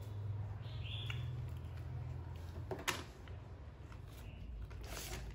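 Low steady hum, with a brief high squeak about a second in and a sharp knock near three seconds.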